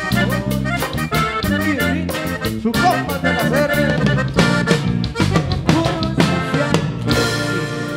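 Live cumbia norteña band music: acoustic guitar, electric bass and drum kit playing a steady dance beat.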